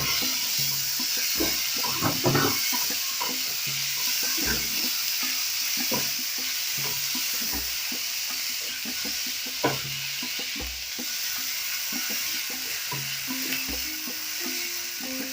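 Chopped tomatoes, capsicum and coriander stems sizzling in hot oil with onions, ginger and garlic in a pan, with a steady hiss. A spoon stirs and knocks against the pan now and then, most sharply at the start, about two seconds in and near the ten-second mark.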